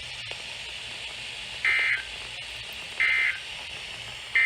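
NOAA Weather Radio's EAS/SAME end-of-message data tones: three short, identical buzzing bursts of data, evenly spaced about 1.3 seconds apart, the third arriving near the end. The bursts signal that the severe thunderstorm warning broadcast has ended.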